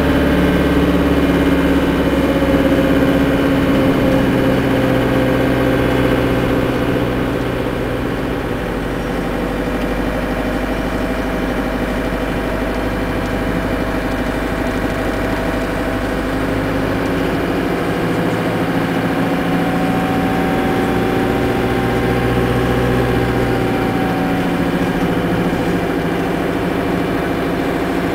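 Vehicle engine running steadily, heard from inside the cab. Its drone slowly rises and falls in pitch in the second half.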